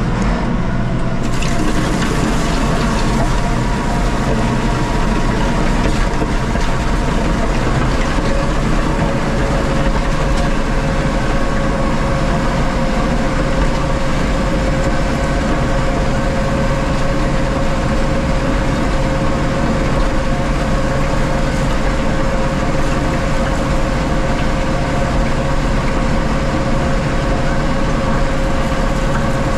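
Kubota tractor running steadily under load while grading a gravel road, with a constant whine over the engine and a wash of noise. The whine grows stronger about eight seconds in.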